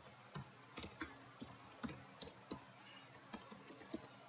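Computer keyboard being typed on: a string of faint, separate key clicks at an irregular pace.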